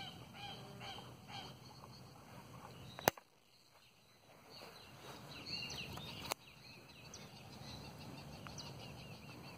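Faint outdoor ambience with scattered short bird chirps. A sharp click about three seconds in cuts the sound out completely for a second or so. Another click comes a little after six seconds.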